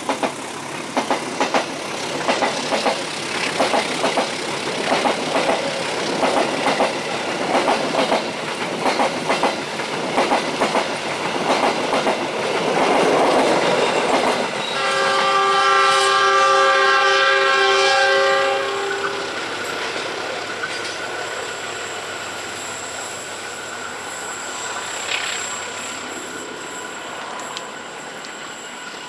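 A train runs past on curved track, its wheels clattering rhythmically over the rail joints for about twelve seconds. About fifteen seconds in, a multi-tone train horn sounds for roughly four seconds. The sound then fades, leaving a thin, steady wheel squeal from the curve.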